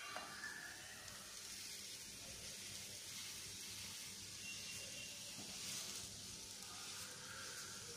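Faint, steady sizzle of a patishapta crepe frying gently in a lightly greased nonstick pan, with a few light taps and scrapes of a wooden spatula against the pan.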